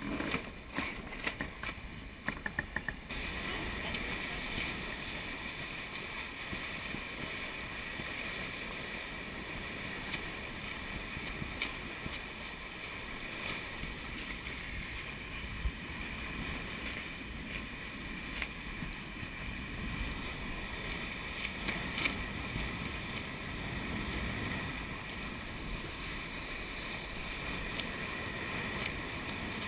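Steady rush of wind and water past a sailing yacht surging downwind under spinnaker at hull speed, its bow wave breaking along the hull. A run of knocks and clicks comes in the first three seconds.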